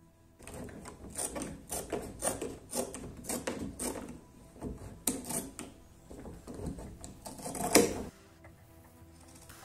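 Heavy metal shears snipping through a thick sheet of leather sole material, a rapid series of cuts about three a second with short pauses, the loudest near the end. The cutting stops about eight seconds in.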